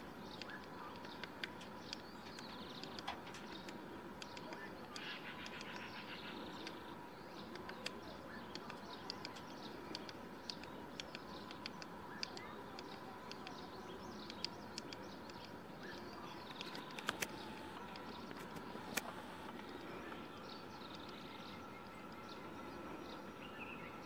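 Woodpecker pecking at pine bark in irregular single taps rather than a drumroll, a few of them much louder than the rest. Other birds chirp in the background.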